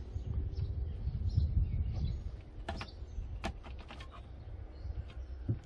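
Gusty wind rumbling on the microphone, with faint bird chirps and a few sharp clicks or knocks in the second half.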